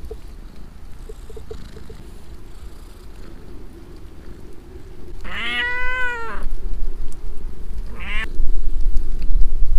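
A cat meowing twice: one long meow that rises and falls about halfway through, then a short meow about two seconds later. Low rumbling on the microphone grows near the end.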